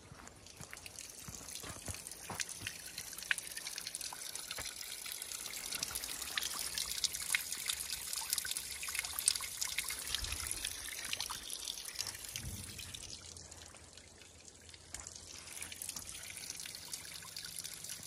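Spring water trickling from a thin metal spout onto stones and wet ground, growing louder over the first several seconds.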